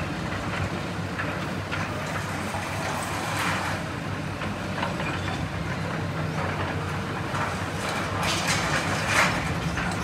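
Excavator diesel engines running in a steady drone, with scattered clanks and rattles of demolition rubble being worked and a louder burst of clatter near the end.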